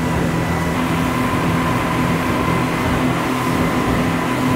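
Engines of a fast, crowded tour boat running steadily at cruising speed: a constant, even hum over a rush of wind and water.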